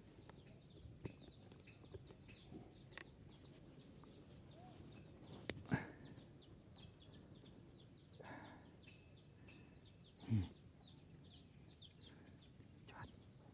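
Quiet outdoor ambience: a bird's quick, repeated falling chirps over a steady high insect drone, with two dull thumps, about six and about ten seconds in.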